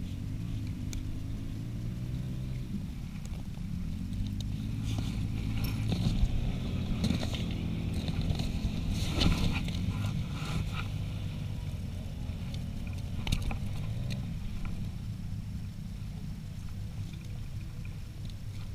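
A motor running steadily, its pitch slowly rising and falling, with scattered short knocks and scrapes.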